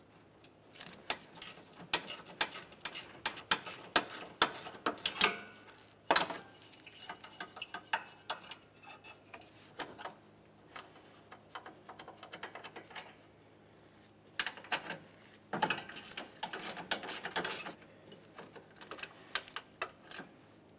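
Hand ratchet clicking in quick runs with pauses as 10 mm bolts on the hood latch are backed out, with a few louder clicks and knocks of the tool against the bolts and latch.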